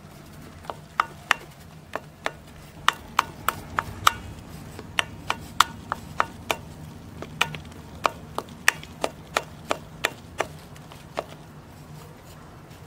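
Spoon beating thick cake batter in a stainless steel bowl, clinking sharply against the bowl's side about three times a second, in an uneven rhythm. The clinking stops about a second before the end.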